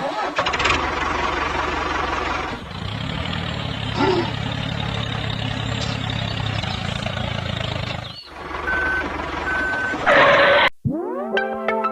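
Truck engine running, with a reversing alarm beeping three times near the end. About a second before the end it cuts to synthesizer music.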